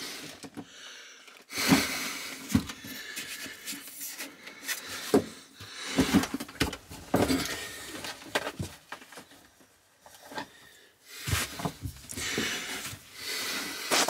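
Scattered knocks and rustling, with a quiet spell about ten seconds in.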